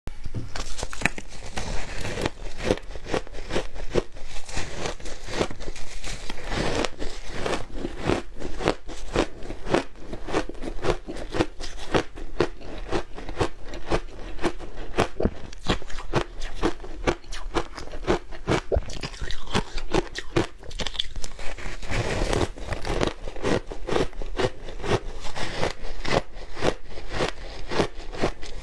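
A person biting and chewing shaved ice close to the microphone: a rapid, continuous run of crisp crunches, several a second, without a pause.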